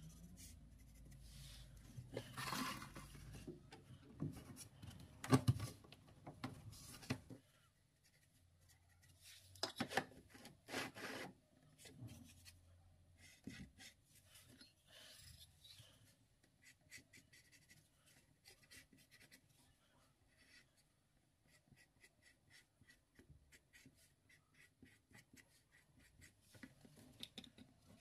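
Marker pen strokes scraping on a laminate floor board, with a few louder knocks and rubs of tools being handled in the first half. Later comes a long run of short, quick pen strokes as lines are drawn back and forth.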